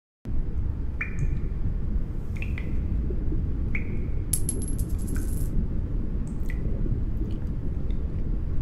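Sound effects of an animated underwater scene: a steady low rumble with scattered short plinks, and a brief clinking, jingling rattle about four seconds in.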